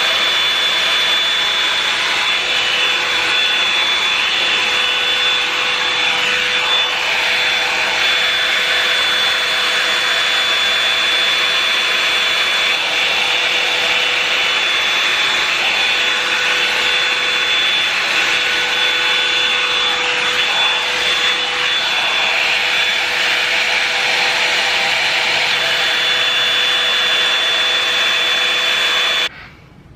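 Revlon One-Step hot-air brush running steadily, a loud fan rush with a fixed high whine, as it blow-dries and straightens wet curly hair. It is switched off near the end and cuts out suddenly.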